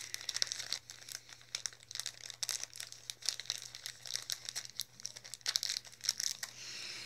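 Plastic toy packaging crinkling as it is handled and opened, an irregular run of crackles.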